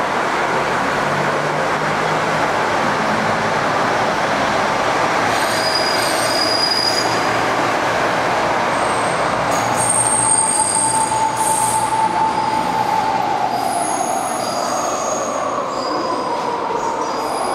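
KiHa 85 diesel railcar train pulling out and rolling past, its Cummins diesel engines running under the steady rumble of the wheels. High-pitched wheel squeal sets in partway through and grows into a clear ringing squeal about ten seconds in.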